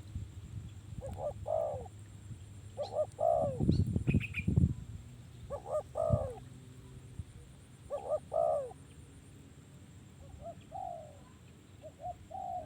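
Spotted dove cooing: a series of short coo phrases about every two to three seconds, the later ones fainter. A few loud low thumps come in the middle, between the coos.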